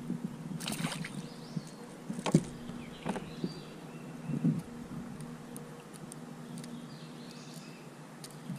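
Handling noises as a small bass is brought in beside a plastic kayak and a lure is worked out of its mouth: a few scattered knocks and clicks, the sharpest about two seconds in, over a faint steady hum.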